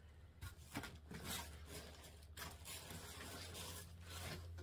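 Rustling and crinkling of a thin clear plastic sleeve and a paper cross-stitch chart being handled, in irregular bursts.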